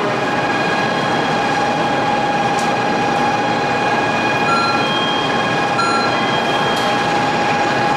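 Shinkansen train standing at a station platform: a loud, steady hiss and hum with a held tone, and two short high beeps around the middle.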